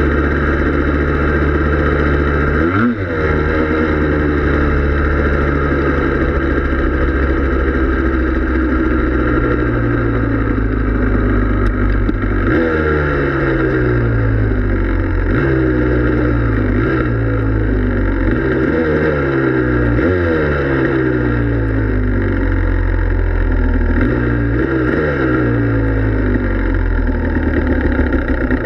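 Yamaha Blaster ATV's two-stroke single-cylinder engine running under way on snow. It dips briefly about three seconds in. From the middle on, the revs jump up and sink back down again and again.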